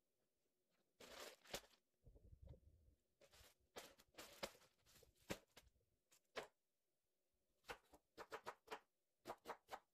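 Faint knocks and plastic crinkles as packets and jars are set down on a wooden cutting board, then a quick run of knife chops on the board near the end as green onions are cut.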